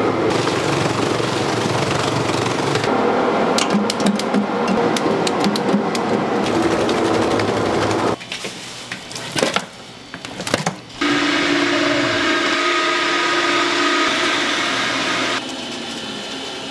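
Fish cake making machine running with a steady mechanical whir and quick clicks and clatters. The sound drops away abruptly about eight seconds in and comes back about three seconds later with a steady hum, then drops again near the end.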